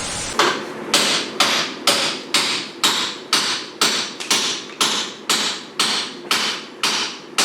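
Steady hammering: about fifteen evenly spaced blows, roughly two a second, over a constant background hiss.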